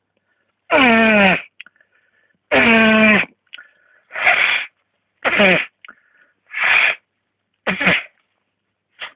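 A person sneezing over and over, about seven loud sneezes in a row, brought on by sniffed tobacco snuff. The first few have a drawn-out voiced part that falls in pitch, and the later ones come quicker and shorter.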